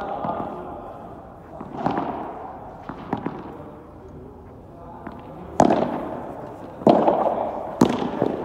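Padel rally: sharp cracks of the ball struck by rackets and hitting the court, each ringing on in the covered hall. Smaller hits come early, then three loud ones about a second apart in the second half.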